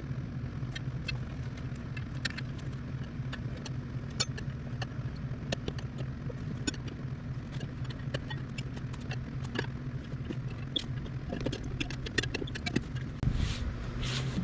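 Irregular sharp clicks and ticks of metal tools against a spoked wheel rim as a tire is worked on by hand, over a steady low hum. A couple of louder rubbing noises near the end.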